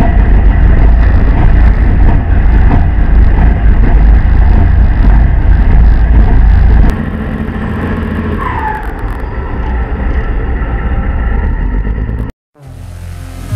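Tugboat's diesel engine running loud with a heavy low rumble, then dropping to a quieter run about seven seconds in, with a brief rising-and-falling squeal soon after. Near the end the sound cuts out and electronic music begins.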